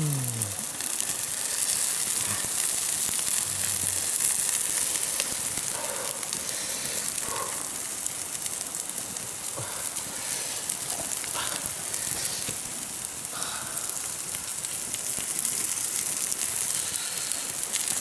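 Open wood fire crackling and hissing under a whole fish grilling over the flames: a steady hiss with scattered small crackles.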